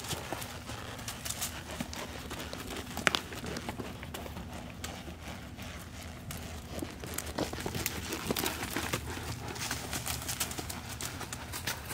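Hoofbeats of a horse circling barrels on dirt strewn with dry leaves: irregular thuds and crackles, with one sharp knock about three seconds in.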